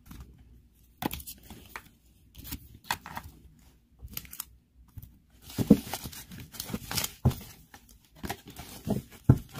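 Tarot cards being handled and gathered on a table: irregular short slides, slaps and taps of card stock, busiest from about the middle on, with a sharper slap near the end.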